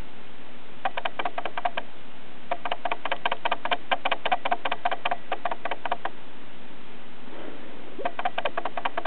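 Grooming brush scraping and clicking in fast rhythmic runs, about seven or eight strokes a second, as the kitten grabs, bites and kicks at it. Three runs: a short one about a second in, a long one through the middle, and another near the end.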